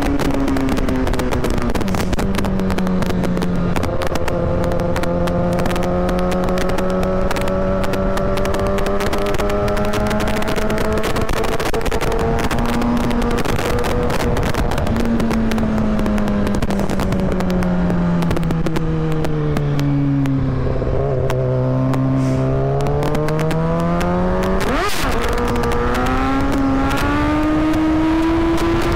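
Kawasaki ZX-6R inline-four engine running under way, heard from the rider's seat. Its note drops at first, holds steady at cruise, sags slowly lower, then climbs again over the last few seconds as the bike accelerates. A single sharp click sounds near the end.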